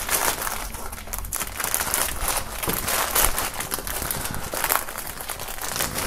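Clear plastic film wrapping crinkling and crackling irregularly as hands struggle to pull a T-shirt out of it, the shirt coming free near the end.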